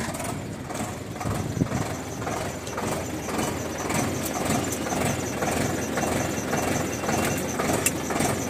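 Preet tractor's diesel engine running steadily while the hydraulic lift lever is worked to raise the tipping trolley, with one sharp knock about a second and a half in.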